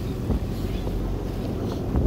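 Boat engine running with a steady low rumble, with wind blowing on the microphone and a couple of small knocks.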